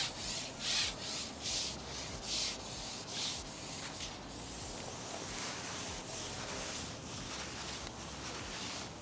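Carbon fishing pole being shipped out hand over hand: a rasping rub as the pole slides through the hands, about one stroke every 0.8 s, stopping about three and a half seconds in. A faint steady hiss follows.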